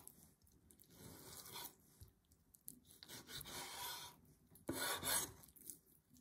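Kitchen knife drawing through raw chicken breast against a bamboo cutting board: a few faint, soft scraping strokes about a second apart, the loudest one near the end.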